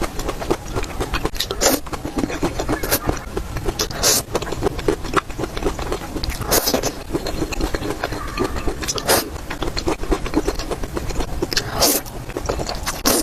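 Close-miked eating sounds of spicy noodles and dumplings: continuous wet chewing and mouth clicks, with a brief louder sharp sound every one to three seconds.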